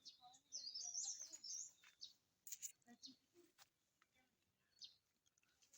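Faint songbird chirping: a quick, high warbling phrase starting about half a second in, followed by a few short, scattered chirps.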